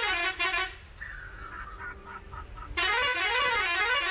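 Bus's musical horn: a short blast ending just after the start, then from about three seconds in a long, loud horn whose pitch swings up and down several times like a tune.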